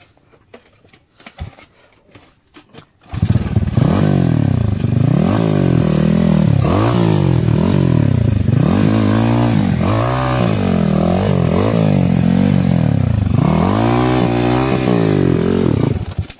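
Small dirt bike engine starting about three seconds in, then revving up and down over and over as the rear wheel spins in mud while the bike is pushed out of a rut. The revving stops just before the end.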